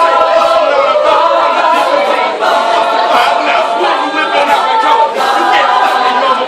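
A cappella vocal group singing, several voices holding sustained notes in harmony with no instruments.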